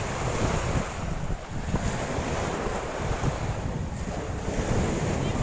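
Strong wind buffeting the microphone over the wash of choppy sea waves breaking on the shore.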